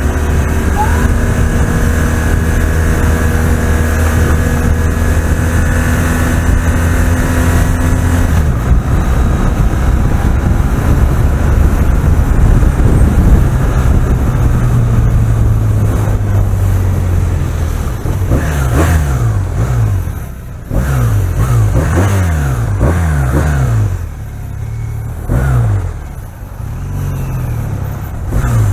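Police motorcycle engine running steadily under wind noise. From about two-thirds of the way in, the throttle is blipped over and over in a series of short rising revs as the bike creeps through slow traffic.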